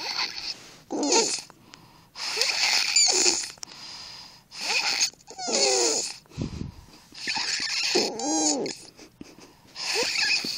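A six-year-old child snoring: a string of raspy breaths every second or two, several carrying a wavering whistle.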